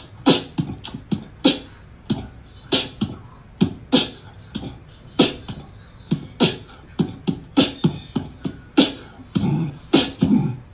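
Beatboxing: a human voice making drum sounds, an uneven run of low kick-like thumps and sharp snare and hi-hat clicks, about two to three a second.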